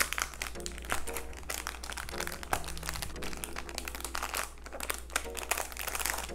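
Thin clear plastic bag crinkling and rustling, with irregular crackles throughout, as hands work two small acrylic boxes out of it.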